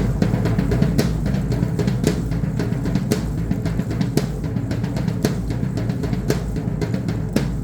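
Drumming for a Mexican danza: a heavy accented drum stroke about once a second, with quicker, lighter strokes between, in a steady driving rhythm that stops near the end.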